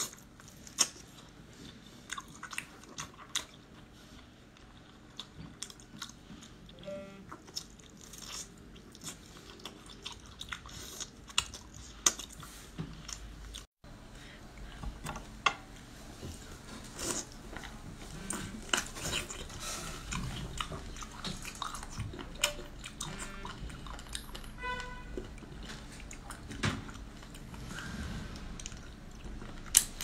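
Close-miked eating sounds: irregular wet mouth clicks, smacks and crunches of chewing and biting into soft braised octopus and then sea cucumber, with a brief cut-out about halfway through.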